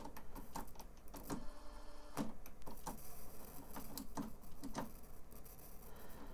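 Transport buttons on the Sony CDF-760 boombox's cassette deck being pressed with no cassette loaded: a scattered series of light mechanical clicks.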